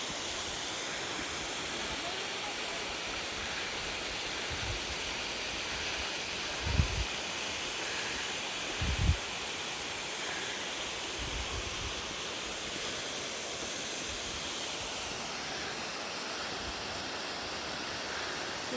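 Steady rushing of falling water from a waterfall. Two brief low bumps, about seven and nine seconds in, rise above it.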